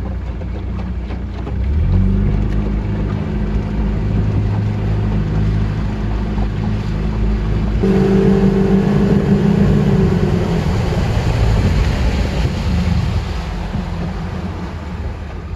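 Boat under way powered by a 1996 Mercury 115 HP four-cylinder two-stroke outboard, the engine running steadily with water and wind noise. About eight seconds in the engine note rises as it is throttled up, then settles back a few seconds later.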